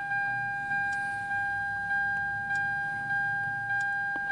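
Car warning chime dinging over and over, about one and a half dings a second, each a two-tone ding that fades before the next.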